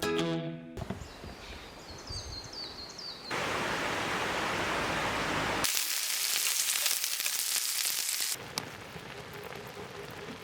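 Outdoor nature sounds in short, abruptly cut segments: a few quick falling bird chirps over quiet surroundings, then a steady rush of flowing water, then a hissier water noise, which drops to a quieter hush near the end.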